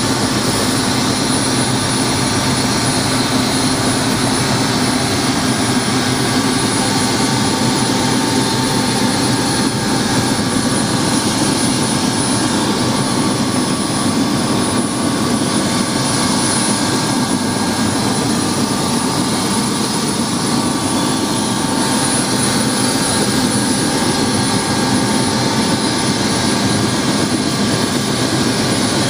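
Helicopter engine and rotor running steadily, heard from inside the cabin: a steady whine over dense, even noise.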